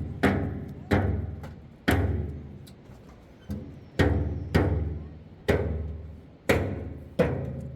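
Heavy knocks on something hollow and resonant, each followed by a low ringing that dies away. There are about ten strikes at an uneven pace of roughly one a second, two of them softer.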